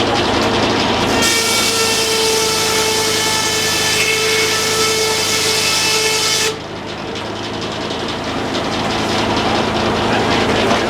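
Sawmill with its engine running steadily; about a second in, the saw blade cuts through wood with a loud hiss and a high whine for about five seconds, then the cut stops abruptly and the engine runs on.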